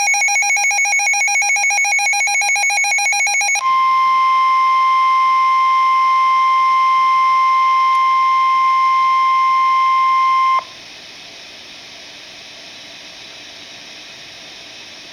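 Emergency weather-radio alert: a rapid pulsing electronic tone, then the NOAA Weather Radio 1050 Hz warning alarm tone held steady for about seven seconds. The tone cuts off to quiet radio hiss.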